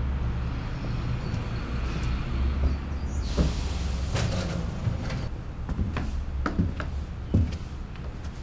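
Household noises: a steady low hum, a sliding swish about three seconds in, then scattered knocks and clicks.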